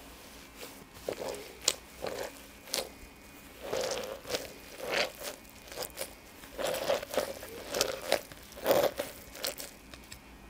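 White cloth towels pushed and packed down by hand into a plastic measuring jug, making a dozen or so irregular short rustling strokes of cloth against plastic.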